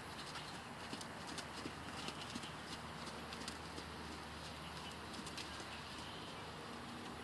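Faint, irregular hoofbeats of a ridden horse on soft, muddy arena footing, with scattered light clicks.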